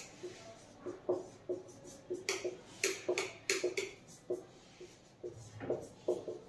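Felt-tip marker writing on a whiteboard: an irregular run of short, faint strokes and squeaks as letters are written.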